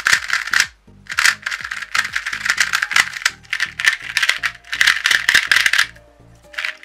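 Plastic 2x2 speed cubes turned quickly by hand, first a magnetic Qiyi Valk 2 M and then a Dayan 2x2. Their layers click and rattle in bursts of rapid turns, with short pauses about a second in and near the end.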